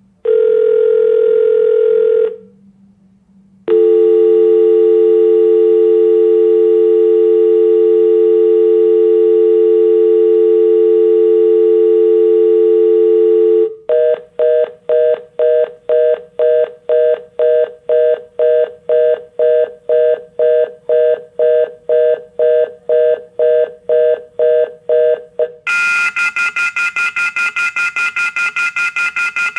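A sequence of telephone line tones. A single two-second ringback tone comes first, then a steady dial tone for about ten seconds, then a fast-pulsing reorder (fast busy) tone at about two beeps a second. Near the end comes the louder, higher, very rapidly pulsing off-hook warning howler.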